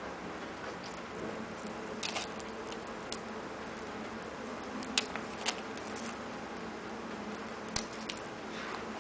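A few short, sharp clicks and taps, like small objects being handled, spread out over several seconds above a steady low hum.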